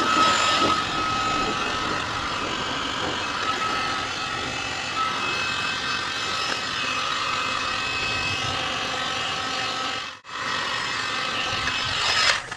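Handheld electric power tool running steadily with a motor whine and rushing noise, cutting out briefly about ten seconds in and starting again.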